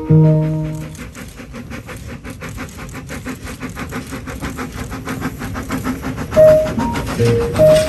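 A narrow-gauge steam locomotive and its coaches passing, with a quick, even beat of about five strokes a second. Background music fades out about a second in and comes back near the end.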